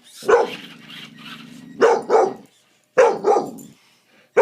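Small dog barking sharply in quick pairs at a remote-control truck, with a low growl rumbling between the first barks.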